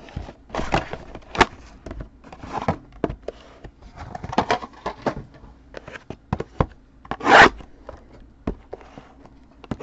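Trading-card packaging being opened and handled: a run of short rubbing, scraping and tearing sounds from the box and pack wrappers, loudest about seven seconds in.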